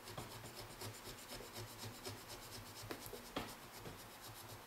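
Serrated knife sawing through the end of a rubber pool-table bumper in short, rapid strokes: a faint, fast scratching, with one sharper click about three and a half seconds in.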